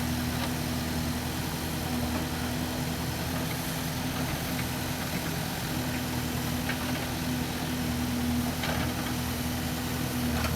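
Case 770FX backhoe loader's diesel engine running steadily at an even pitch, with a few faint clicks.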